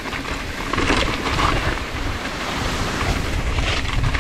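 Wind rushing over the camera microphone during a mountain-bike descent, with a steady rumble and faint rattles from the bike rolling over the trail.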